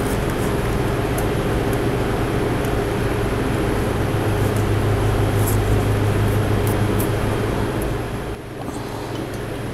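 Steady machine drone with a low hum, easing off about eight seconds in.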